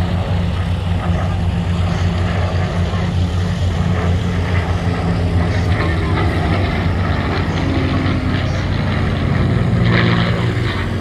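Supermarine Spitfire's piston engine and propeller droning steadily as it flies a display pass, getting a little louder near the end.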